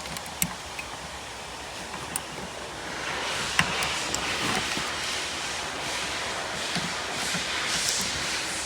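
Hands handling a car's wiring harness and plastic connectors: a few small sharp clicks, then from about three seconds in a louder, uneven rustling hiss.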